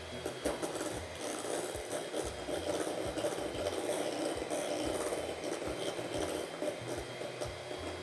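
Electric hand mixer running steadily, its beaters whipping cream in a glass bowl, with irregular knocks and rattles as the beaters hit the bowl.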